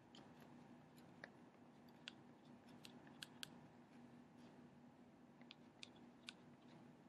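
Faint scattered taps and small squeaks of a marker tip writing on a whiteboard, over a low steady hum.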